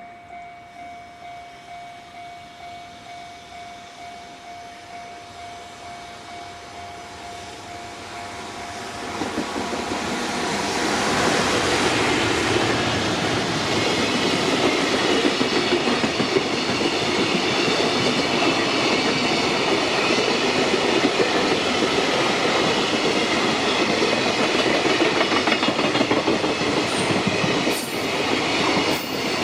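A level crossing alarm rings in a steady pulsing rhythm, then from about nine seconds in a long freight train passes loudly, its wheels clattering over the rail joints and drowning out the alarm.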